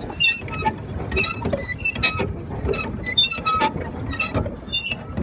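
Metal fittings of a small boat under way squeaking and creaking: many short, high squeaks in quick, irregular succession over a low rumble.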